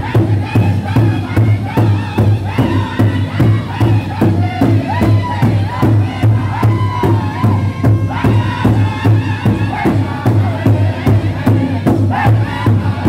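Northern-style powwow drum group singing an intertribal song in unison: many men's high-pitched voices over a large hand drum struck together in a steady, even beat.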